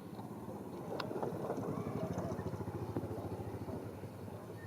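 An engine running, with a rapid, even low pulse that grows louder about a second in.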